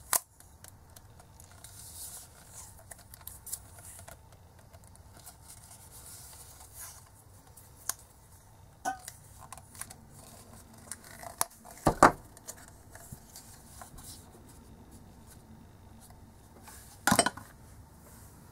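Handling noises from a yellow rubber sleeve being stretched over a small black plastic housing: scattered clicks and rubbing, with a sharp knock at the start and louder knocks about twelve seconds in and again near the end.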